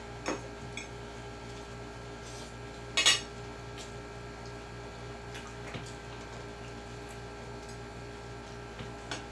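Cutlery clinking against plates while eating, with a few sharp clicks near the start and one louder clatter about three seconds in, over a steady low hum.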